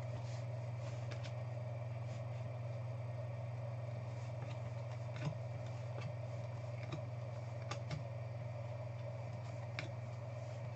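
Steady low electrical hum of a small room, with a few faint clicks of trading cards being handled and flipped.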